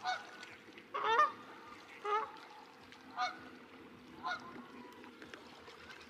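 Canada goose honking: five calls about a second apart, the later ones growing fainter.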